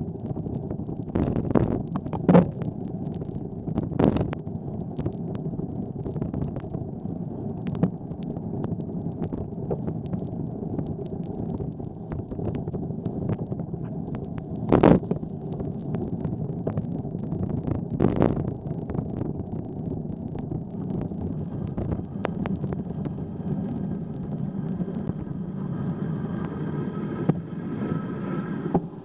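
Cycling on wet city pavement in light rain: a steady rumble of road and wind noise on the bike-mounted camera, broken by a few sharp knocks from bumps, the loudest about halfway through. Near the end a faint steady hum joins in.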